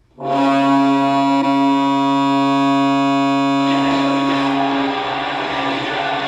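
Hockey arena goal horn sounding a steady, loud chord of several pitches, starting suddenly and held for about three and a half seconds. It then gives way to music.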